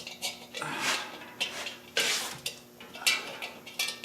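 Small metal hardware (bolts, washers and steel backing plates) clinking and scraping against each other while a bolt is worked through a mounting hole: irregular clicks and clinks, with a longer scrape about two seconds in.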